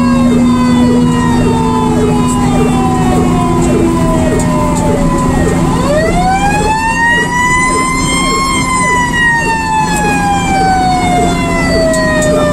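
Fire engine's mechanical siren winding down, its wail falling slowly. About six seconds in it is wound back up, rising quickly to a peak, then coasts down again. The truck's engine runs steadily underneath.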